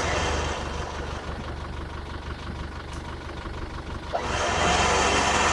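Off-road 4x4's engine running steadily during a winching recovery, growing louder and noisier about four seconds in.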